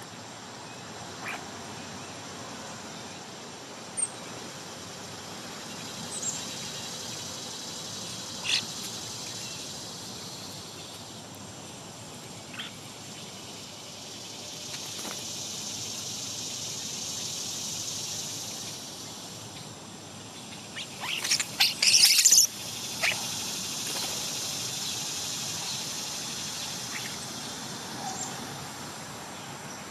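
Songbirds giving scattered short calls over a steady chorus of insects that swells and fades. About two-thirds of the way through comes a loud burst of rapid, sharp sounds.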